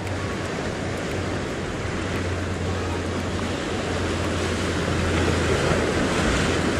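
Ocean swell surging and washing around sea rocks, with a low wind rumble on the microphone. The wash grows louder about five seconds in.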